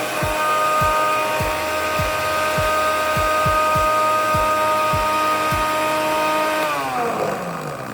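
Miyako BL 101 PL blender motor running at a steady whine, with a low thud about twice a second, then switched off near the end and winding down, its pitch falling.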